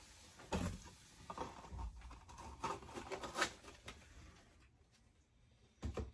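Rustling and light knocks of items being handled and set down on a table, with several short sharp knocks spread through it and a quieter stretch shortly before a last knock near the end.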